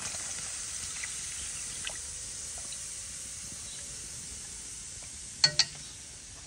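A pot of braising fish sizzling and hissing steadily after water is poured in, the hiss slowly fading. Two sharp clicks about five and a half seconds in.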